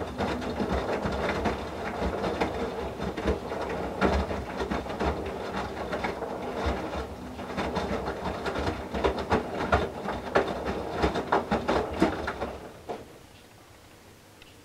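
Whirlpool Duet WFW97HEDC front-loader's direct-drive drum tumbling a load of wet towels in the main wash: irregular knocks and splashing of the towels falling through the water over a steady motor hum. The drum stops near the end and the machine goes quiet.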